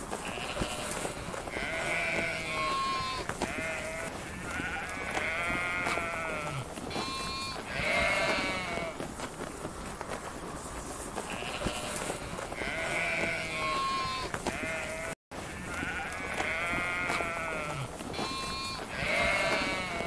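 A flock of sheep bleating, several calls overlapping, each with a wavering, quavering pitch, over a steady outdoor hiss. The sound cuts out for an instant about fifteen seconds in.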